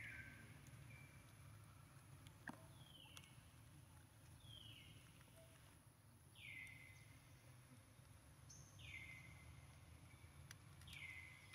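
Faint outdoor ambience with a bird repeatedly giving a short high call that slides downward, about six times, every one and a half to three seconds.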